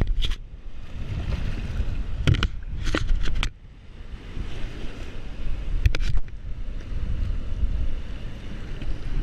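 Wind rumbling on the microphone over shallow surf washing at the water's edge. There are a few short sharp knocks about two to three seconds in and again around six seconds.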